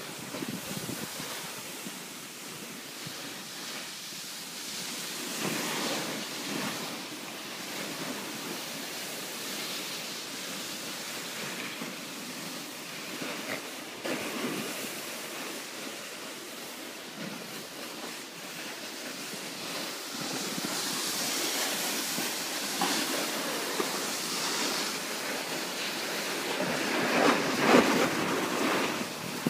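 Wind rushing over the microphone while riding down the slope, mixed with the scrape and hiss of snowboards sliding over packed snow; it grows louder in the last few seconds.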